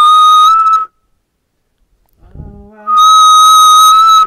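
A loud, high, steady whistle tone, held for just under a second, then sounded again for about a second and a half near the end. A brief, lower stepped tone comes between the two.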